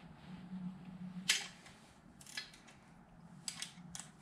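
A few scattered light, sharp clicks and taps of hand tools, about five over four seconds, the strongest about a second in, over a faint steady low hum.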